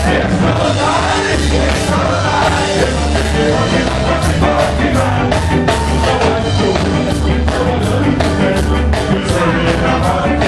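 Live ska band playing at full volume: bass and drums keeping a steady driving beat with guitars, and a lead vocalist singing over it.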